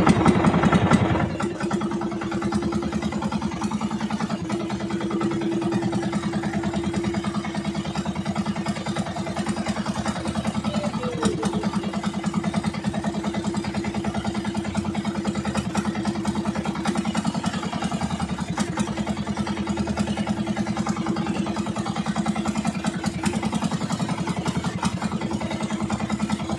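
Engine of a motorized outrigger boat running steadily under way, a constant hum with fast even pulsing.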